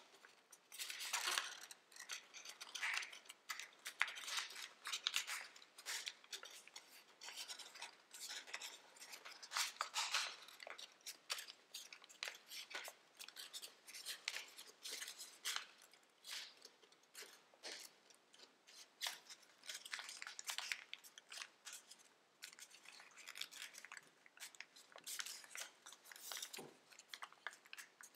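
Tissue-foil origami paper crinkling and rustling as it is folded and creased by hand, with short crackles that come and go irregularly.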